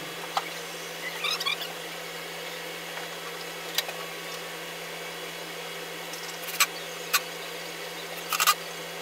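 Sparse light clicks and knocks of flat-pack furniture parts being handled and fitted, with a short squeak a little over a second in, over a steady low hum.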